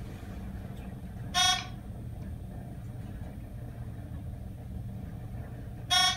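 Traction elevator car travelling down with a steady low hum, and two short electronic beeps about four and a half seconds apart: the floor-passing chime sounding as the car reaches each floor.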